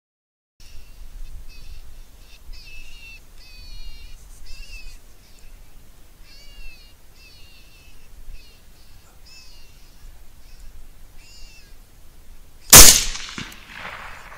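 Short, high, wavering distress cries repeat in bursts, the kind played from a predator call. Near the end comes a single loud 6.5 Grendel rifle shot at a coyote, its report rolling away over about a second.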